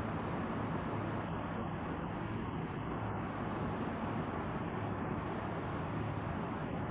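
Steady rushing noise of heavy rain and wind, with a low hum underneath.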